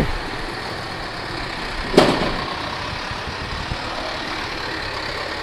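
SYM Wolf 125's single-cylinder four-stroke engine idling steadily and very smoothly, with one sharp knock about two seconds in.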